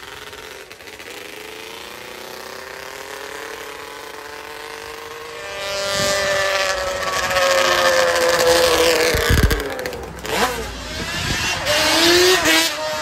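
Yamaha Banshee quad's two-stroke twin engine revving up and down as it is ridden along the road, getting much louder about halfway through as it comes close.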